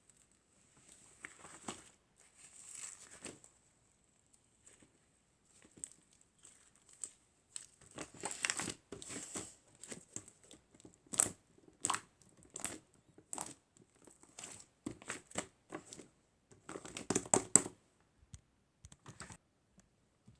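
Irregular crinkling and crackling handling noise with scattered sharp clicks, the loudest burst of crinkles a few seconds before the end.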